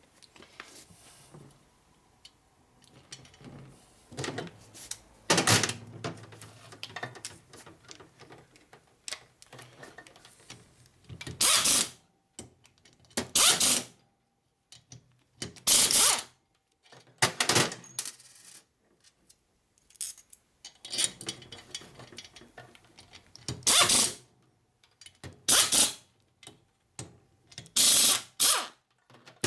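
A small handheld power driver run in short bursts of about a second each, driving the fasteners on an ironhead Sportster cylinder head, with pauses between the bursts.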